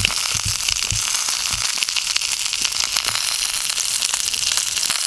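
Sausages sizzling and crackling in a steel frying pan over a small folding camp stove, a steady spitting hiss, with a few low thumps in the first couple of seconds.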